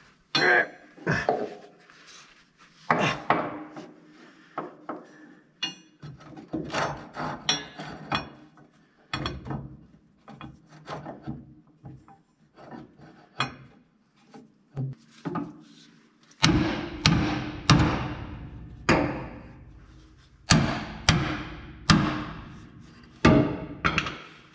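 Irregular knocks, clanks and scraping from hand tools on metal truck parts. In the second half comes a run of sharp, ringing strikes, about one a second, like hammer blows on metal.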